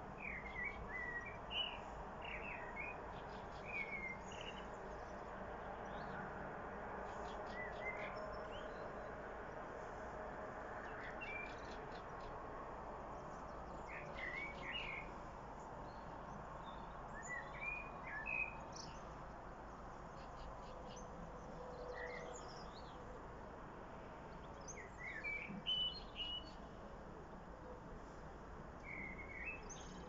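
Common blackbird singing short fluty phrases with pauses of a few seconds between them, each ending in higher twittering, over a faint steady background noise.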